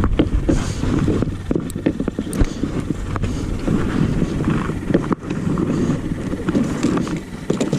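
Wind buffeting the microphone on a kayak at sea, a dense rumble with scattered sharp knocks.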